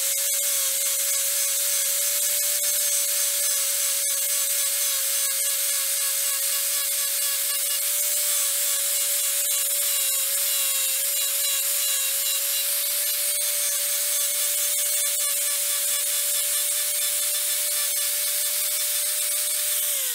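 Angle grinder running at a steady whine as it undercuts the end face of a wooden knee brace, its disc rubbing and grinding into the wood. This shallow undercut lets the brace's two edges seat tight against the post and top plate.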